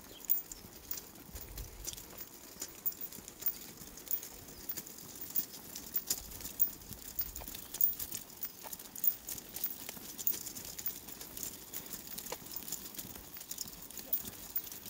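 Footsteps on a tarmac path, sharp irregular taps a few times a second, with the small wheels of a shopping trolley rolling along.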